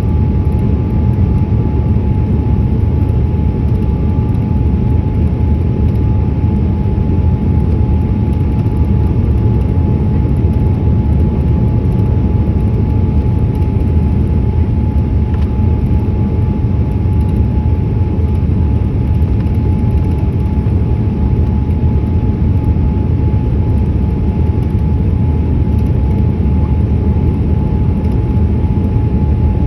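Steady low rumble of a Boeing 787-8 airliner heard from inside the cabin, engine and airflow noise with a thin steady whine above it, unchanging throughout.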